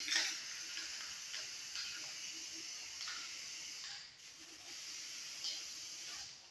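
Aerosol spray-paint can hissing in long bursts as paint is sprayed, with a brief break about four seconds in. The spraying stops near the end.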